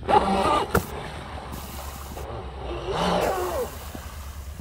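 Deltaforce 35 RC speedboat's 1900 kV brushless motor whining in short bursts of throttle. The first burst lasts under a second at the start. The second swells about two and a half seconds in and falls in pitch as it comes off the throttle.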